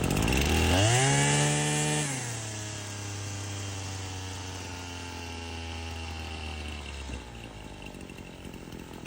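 Husqvarna 525L string trimmer's two-stroke engine high-idling, then stumbling down to a lower speed and dying out about seven seconds in. This is the sign of an air leak: the wrong gasket behind the carburetor lets it suck air.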